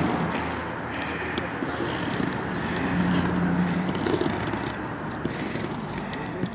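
Steady outdoor traffic noise, with a brief low hum about three seconds in, while hands scrape and handle a taped cardboard box, making small clicks and rustles.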